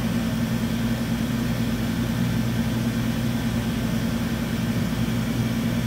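2006 DMG DMU 100P Duo Block five-axis CNC vertical mill running with its spindle turning slowly, at about 100 rpm: a steady low machine hum.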